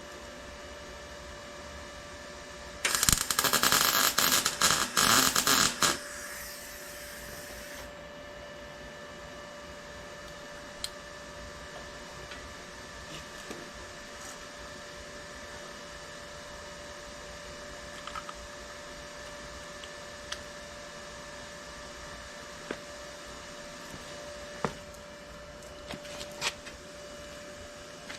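A short weld bead: about three seconds of loud, crackling arc welding starting about three seconds in, followed by a brief fading hiss. A steady electrical hum runs underneath throughout, with a few light clicks later on.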